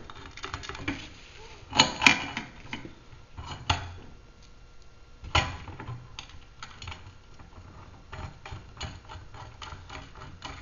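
Metal parts of an aluminium sweeper tray being handled and fitted by hand: a few sharp knocks, the loudest about two seconds in, then a run of small light clicks as a bolt with a washer is put in place.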